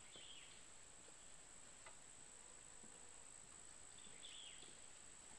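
Near silence: a steady high-pitched drone of summer insects, with two brief high chirps, one at the start and one about four seconds in.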